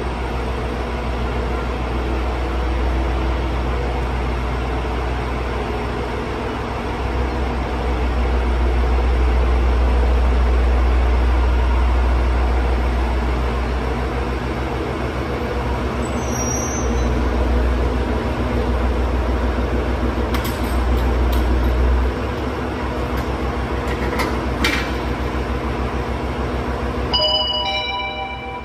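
JR Hokkaido H100 diesel-electric railcar running with a low engine rumble as it creeps up and couples to a second H100. The rumble eases off about two-thirds of the way in, with a few sharp metallic clanks around the same time as the couplers meet. A short falling chime sounds near the end.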